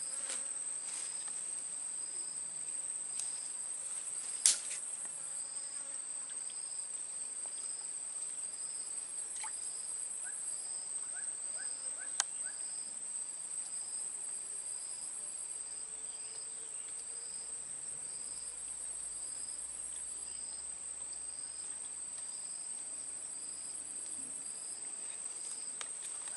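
Insects droning steadily at a high pitch, with a second, softer chirp repeating evenly about three times every two seconds. A few sharp clicks stand out, the loudest about four seconds in.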